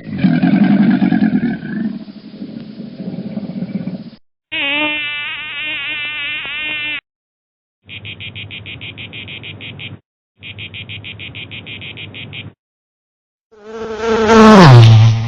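A string of separate animal calls with short silent gaps: first a dense insect-like buzzing, then a warbling call, then two runs of rapid, evenly pulsed trilling, and near the end a loud call that slides down in pitch.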